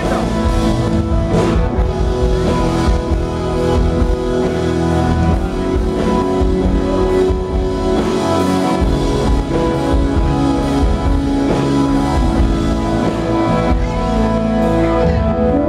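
A church worship band playing, with guitar and drums, steady and loud.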